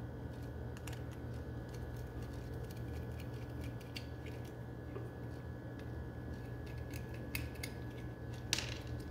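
Faint clicks and light scraping of a small screwdriver working the terminal screws of a plastic electrical plug, over a steady low hum. A couple of sharper clicks near the end.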